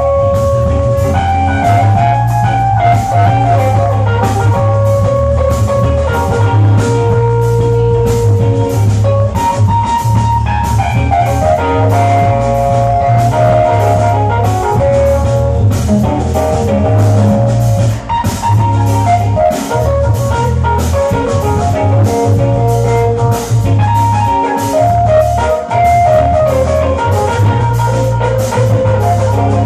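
Live instrumental jazz-blues trio playing: keyboard melody and chords over a strong, steady low bass line, with a drum kit.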